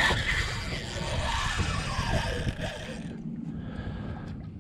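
Wind rumbling on an action camera's microphone during a fishing fight, with faint, indistinct voices in the first half.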